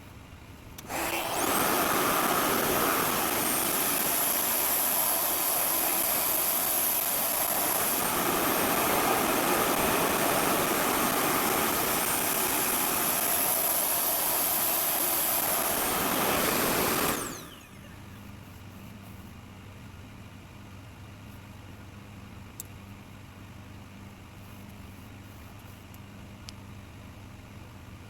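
A RevAir reverse hair dryer runs: it switches on about a second in, runs steadily as a loud rush of air with a high whine, then switches off about two-thirds of the way through and winds down with a falling whine. A quieter low hum remains after it.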